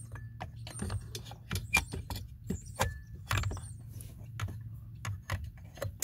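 Irregular light clicks and taps of a hard plastic HVAC blend door actuator and its bracket being handled and fitted against the plastic heater housing, over a faint steady low hum.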